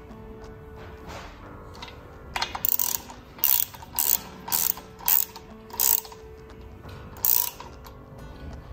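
Hand ratchet wrench clicking in a run of short strokes, about two a second, starting a couple of seconds in and stopping near the end, as a nut is turned onto the gearbox mount.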